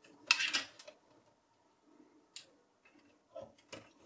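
Plastic and metal clicks and scrapes from a Dell OptiPlex 9020's blue plastic drive bracket and the power and data connectors being pushed onto the SSD. There is a loud rattling cluster in the first second, then a single sharp click and a few lighter clicks near the end.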